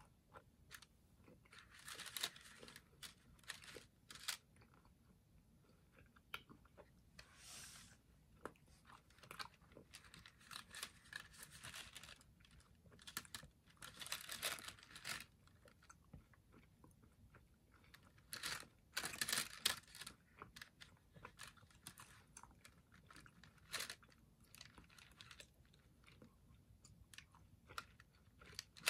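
Faint mouth sounds of a person chewing a mouthful of hot jelly beans: scattered wet clicks, with a few breathy puffs out through pursed lips every few seconds.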